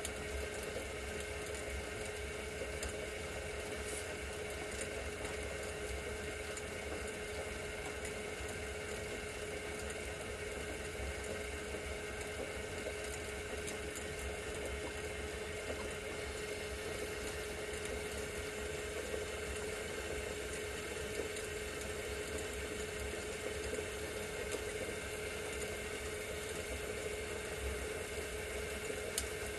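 Homemade glass lathe running steadily, its drive giving a constant whine over a low hum, with the steady hiss of a gas torch flame heating the spinning glass tube.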